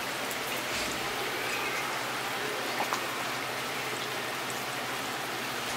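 Steady rain falling: an even hiss with the odd louder drop.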